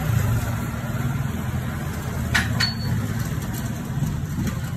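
An engine idling steadily with a low rumble, with two sharp clicks a little past the middle.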